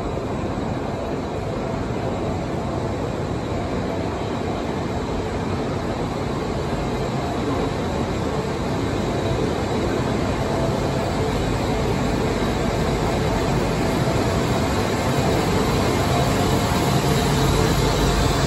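Los Angeles Metro B/D Line subway train of Breda A650 cars arriving at an underground platform: a steady rumble of wheels on rail that grows gradually louder as the train draws in alongside.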